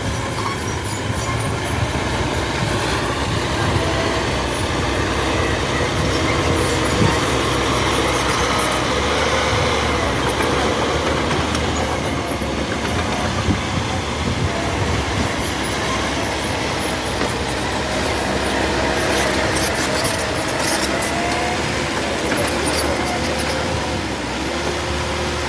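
Diesel earthmoving machinery running steadily, with a thin whine that wavers in pitch over the engine noise.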